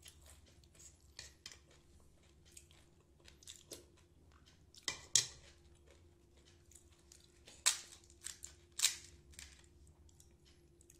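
Phuchka being prepared by hand: crisp hollow puri shells cracked open and handled, with a spoon clinking in a ceramic bowl of tamarind water. Soft clicks and small crunches throughout, with a few sharper cracks about halfway through and again a few seconds later.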